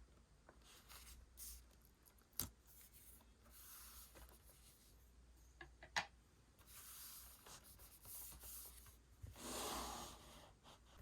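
Quiet handling of paper and stationery: faint rustling and scraping, with two sharp taps about two and a half and six seconds in, and a longer rustle of paper near the end.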